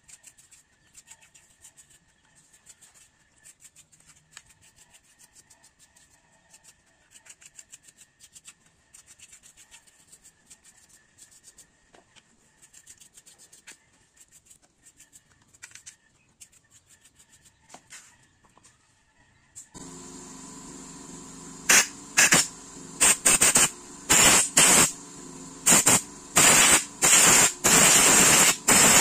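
Paintbrush scrubbing Honda Vario 110 carburetor parts in cleaning fluid, a faint rapid scratching. About twenty seconds in a steady hum with hiss starts, then a run of short, loud hissing blasts as the carburetor is blown out.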